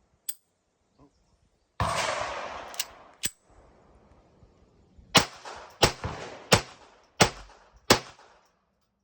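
Smith & Wesson Model 41 .22 LR semi-automatic pistol being fired: a bang with a long fade about two seconds in, then five shots in steady succession about two-thirds of a second apart, each followed by a short ring. A few small clicks come between.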